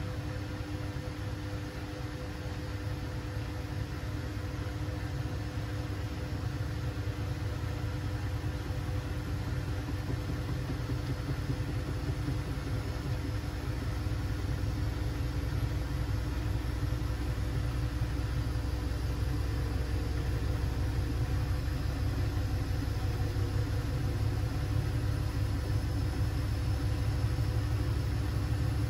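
Siemens Siwamat 6143 washing machine running a boil wash: a steady low rumble with a motor hum, growing slowly louder.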